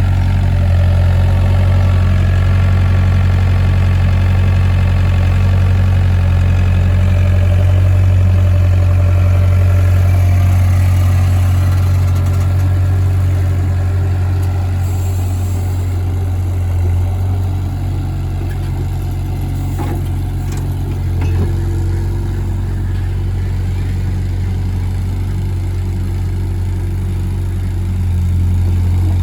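Excavator's diesel engine running with a steady low drone, a little louder in the first half and easing slightly after about twelve seconds, with a few faint clicks later on.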